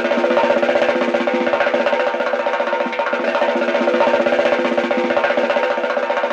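Rapid, steady percussive clatter, like a wood-block rhythm, over a held tone; it runs on evenly without a break.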